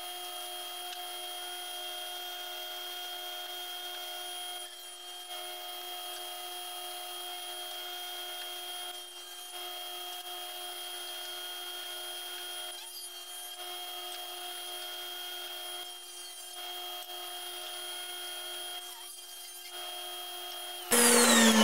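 Sliding tablesaw running with a steady, even whine that dips briefly about every three to four seconds. Near the end it gets much louder and the pitch starts falling as the blade spins down.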